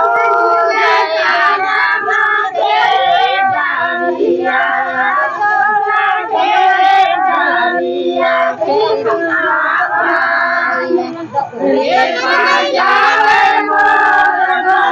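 A group of women and girls singing a Karma puja folk song together, several high voices overlapping.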